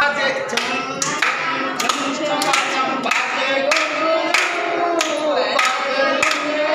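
A group of young children singing a devotional song together, the kind sung in praise of a Jain monk, while clapping along on a steady beat of about one and a half claps a second.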